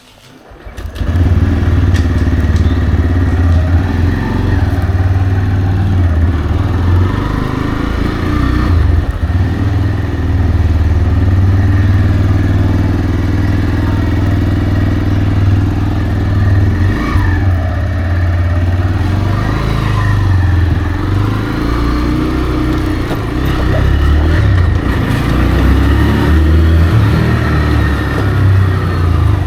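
TVS Raider 125's single-cylinder engine through its stock exhaust, running steadily as the motorcycle is ridden, with the engine note shifting now and then. It comes in suddenly about a second in.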